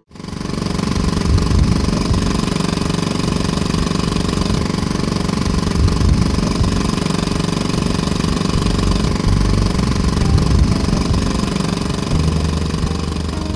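Small outboard motor running steadily as it pushes a small boat along, heard from the bow.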